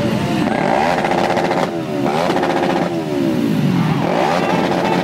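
Several motorcycle engines idling in a close pack, with throttle blips that send the pitch up and back down several times.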